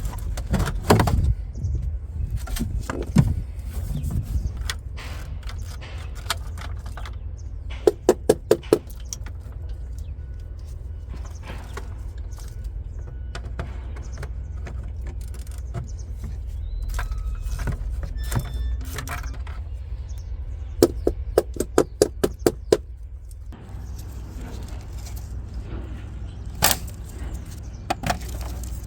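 Hand work on a truck's electrics: scattered sharp clicks and rattles, with two short runs of quick, evenly spaced clicks, over a steady low hum.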